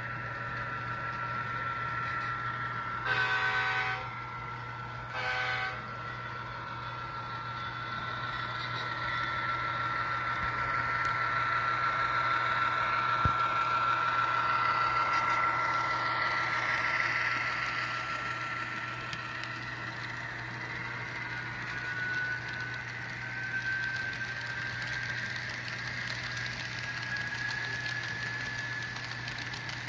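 SoundTraxx DCC sound decoder in an HO-scale BNSF diesel locomotive sounding its horn in two short blasts, about three and five seconds in, over its steady running engine sound. A thin steady whine goes on throughout and rises slightly in pitch after about twenty seconds.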